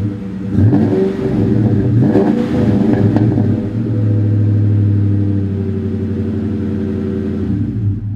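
2003 Mustang Cobra's supercharged 4.6-litre V8 running through the factory H-pipe and Flowmaster mufflers, the only change from stock exhaust. It is blipped up and back several times in the first three seconds, then held at raised revs for a couple of seconds before dropping back.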